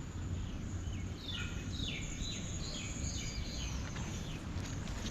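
A bird singing a quick run of short, repeated chirping notes for a couple of seconds, over a steady low outdoor rumble.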